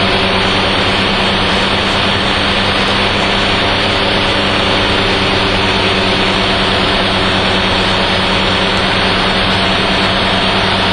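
Steady in-flight drone of a Dyke Delta's Mazda rotary engine and propeller, heard through the cockpit intercom: a dense hiss with a constant low hum running through it.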